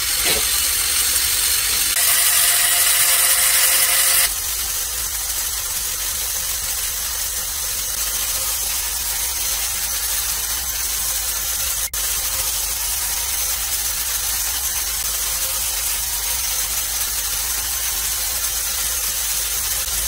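Lego Technic motors and gear trains running a conveyor belt and sock-folding mechanism, a steady mechanical whirring that grows louder for about two seconds starting around two seconds in.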